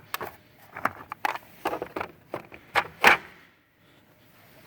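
Metal hand tools and sockets clicking and knocking against each other and the toolbox as they are handled, a quick irregular run of sharp knocks for about three seconds, then quiet.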